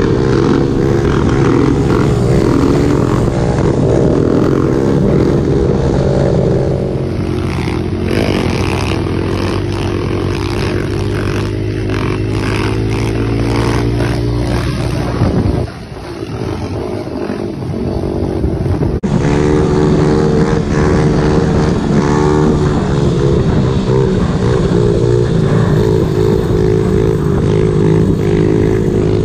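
Kawasaki KLX110 pit bike with a 143 cc big bore kit, its single-cylinder four-stroke engine running under throttle as it rides, heard from on the bike. From about a quarter of the way in, it is heard from beside the road as the bike wheelies past, with the engine dropping off briefly about halfway through. After that there is an abrupt cut back to the on-board engine sound.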